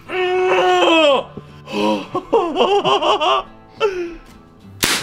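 A man's long held cry that falls away, then rapid bursts of nervous laughter; near the end, a single sharp click of the gel blaster's trigger.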